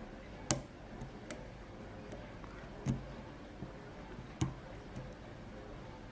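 Lock-picking tools clicking in a Reese pin-tumbler padlock as the pick works the back pins: three sharper clicks about two seconds apart among fainter ticks.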